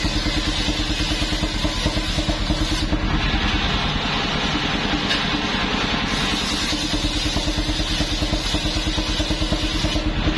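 Engine of a homemade truck-mounted circular sawmill running steadily with a fast, even beat, driving the large circular saw blade as planks are fed through it; the higher hiss shifts a few times as the boards pass through.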